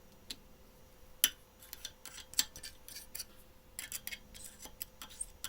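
Light metallic clicks and clinks of small brass ball valve parts and tools being handled on a workbench. There is a sharper click about a second in, and the clicks come more often near the end.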